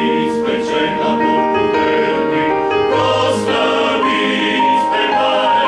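Men's choir singing a hymn in several parts, with long held notes.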